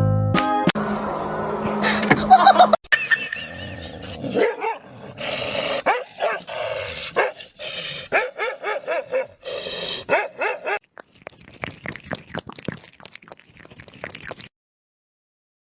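A dog barking and yipping in repeated short calls, followed by a stretch of quick light clicks.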